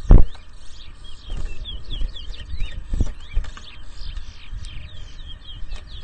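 Caged towa-towa finch singing rapid, repeated phrases of quick chirping notes, the songs being counted in a singing race. A loud low thump comes right at the start and a weaker one about three seconds in.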